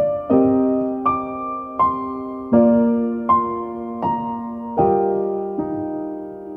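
Slow background piano music, a note or chord struck about every three-quarters of a second and left to ring and fade.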